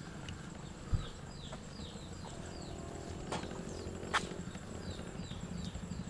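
Outdoor ambience: a bird repeating short, falling chirps over a steady high-pitched whine and a low rumble, with a few faint knocks, the sharpest about four seconds in.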